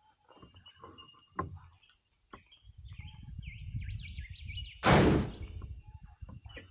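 Birds chirping and calling, with a low rumble starting about two and a half seconds in and one loud, brief rush of noise about five seconds in.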